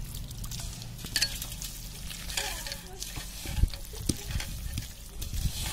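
A hand squishing and kneading raw chicken pieces coated in egg, flour and spice masala in a metal pot: wet squelching and crackling, with a few dull thumps in the second half.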